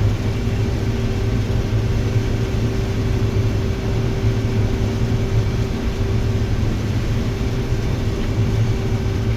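Combine harvester running steadily while harvesting corn, heard from inside the cab: an even, unbroken low drone with a steady hum above it.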